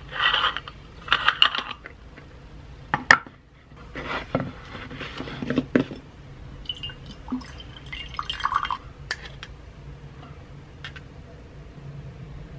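Aluminium stovetop moka pot being unscrewed and taken apart, with metal clinks and knocks, then ground coffee spooned from a tin into its funnel basket. The handling comes in several short bursts with sharp clicks.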